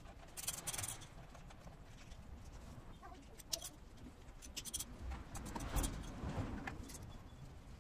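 Faint, scattered clicks and light metallic scrapes of an Allen key working the bolts of a Kawasaki Versys 1000's lower plastic side fairing as they are undone.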